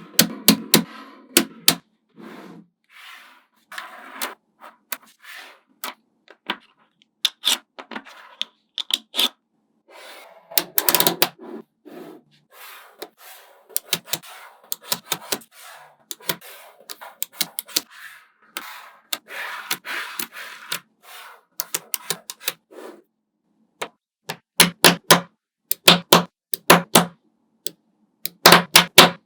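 Small magnetic balls clicking and snapping together as they are placed one by one, in irregular sharp clicks with short stretches of rattling, and quick runs of clicks near the end.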